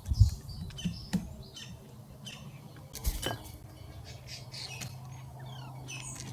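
Small wild birds at a feeder box, with short high chirps and calls throughout and wing flutters. Two low thumps, one just after the start and one about three seconds in.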